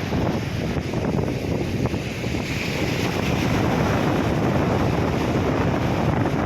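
Wind buffeting the microphone, over the steady wash of sea waves breaking on a beach.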